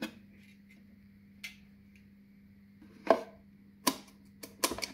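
Sharp cracks and snaps of a ukulele's thin wooden top being pressed by hand and splitting away. The loudest crack comes about three seconds in, and several more follow in quick succession near the end.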